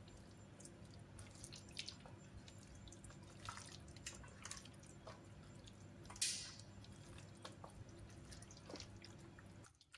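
Faint wet squelching and soft smacks of a bare hand kneading marinated chicken pieces in a thick spice paste in a steel tray, with one louder smack about six seconds in, over a low steady hum. It stops abruptly near the end.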